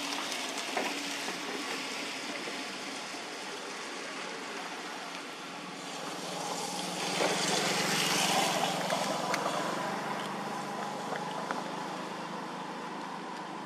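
An engine running at a distance over a steady outdoor hiss. It grows louder about six seconds in and fades slowly toward the end.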